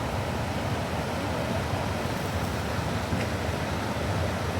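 Steady rushing of running mountain stream water, an even hiss with no breaks or distinct events.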